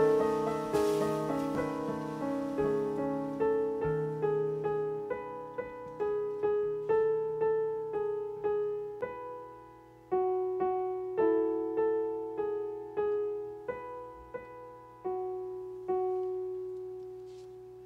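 Stage keyboard with a piano sound playing a slow solo melody, single notes struck about twice a second and left to ring and fade. Low notes underneath drop away about five seconds in.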